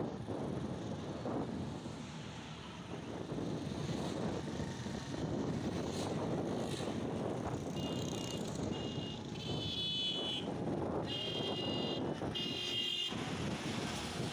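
Wind buffeting the microphone with road and engine noise from a moving motorcycle, steady throughout. From about 8 s in, a high beeping tone sounds in four short bursts.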